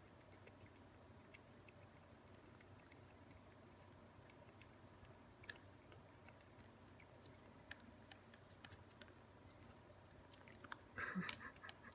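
Ragdoll cats licking lickable paste from a squeeze tube: faint, irregular wet clicks and smacks of tongues lapping. The sound gets louder near the end.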